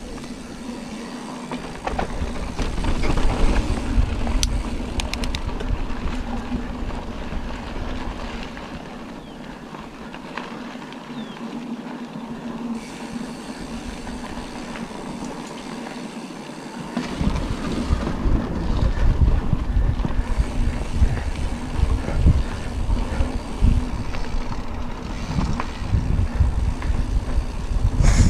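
Mountain bike riding along a dirt trail: a continuous rumble and rattle of tyres and bike over the rough ground. It gets louder and rougher about two-thirds of the way through.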